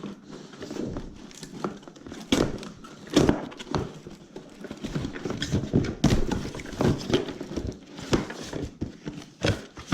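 Irregular knocks, taps and rustling as the scooter's cardboard box and packing are handled, with things lifted out and set down.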